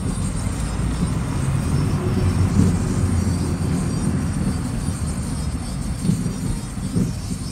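Low rumble of a car driving along a city street, heard from inside the car, with traffic alongside; it grows louder about two and a half seconds in.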